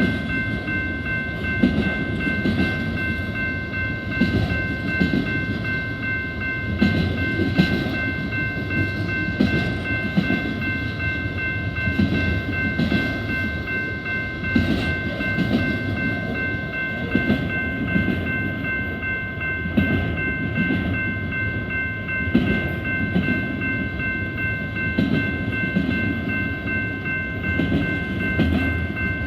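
Train passing: its cars rumble along the rails with a pulsing clatter that swells every second or two, under a steady high-pitched whine.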